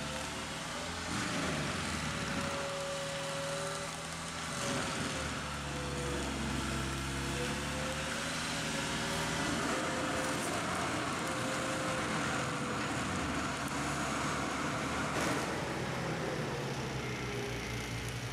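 ASV compact track loader's diesel engine running hard, driving a drum-type forestry mulcher that grinds up brush. The engine note wavers up and down as the load changes.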